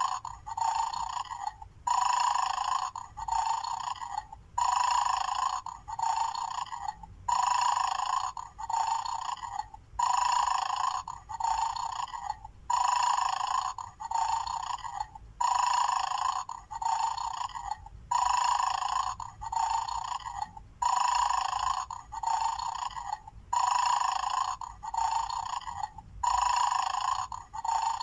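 Recorded snoring played through the small speaker of a 'mad dog' bone-stealing game toy, a thin, tinny snore repeating about every three seconds. Each cycle is a longer breath followed by a shorter one.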